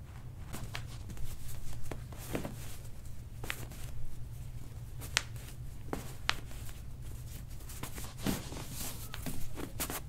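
Hands and a white cloth moving over a bare foot and ankle make soft rustling and shuffling noises, with several sharp clicks scattered through, the sharpest two about a second apart midway.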